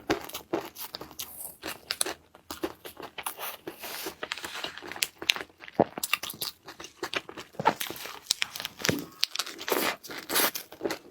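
Close-miked eating: a person biting and chewing crunchy food, with many irregular sharp crunches and wet mouth clicks.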